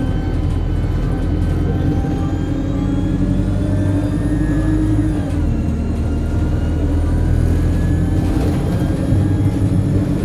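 Alexander Dennis Enviro200 single-deck bus's diesel engine running under way, with a high turbocharger whine whose pitch climbs slowly over a few seconds, heard from on board.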